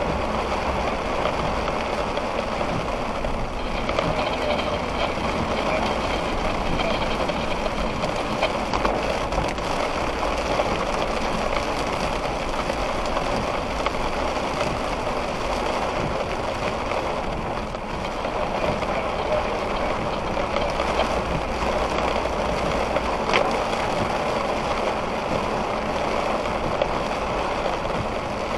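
Steady heavy rain, with a low hum underneath that drops away about 22 seconds in.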